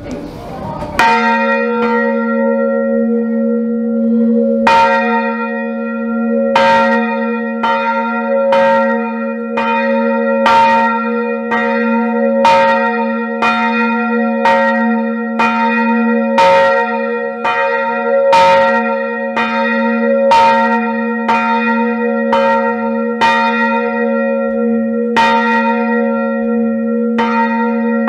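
Baroque bronze church bell tuned to b′, swinging and ringing: its clapper strikes roughly once a second over a steady humming tone that rings on between strokes. A single first stroke comes about a second in, and the regular strokes start after a short pause.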